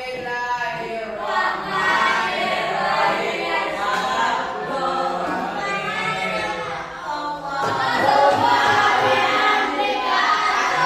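A class of students singing together in unison, growing louder and fuller about two-thirds of the way through.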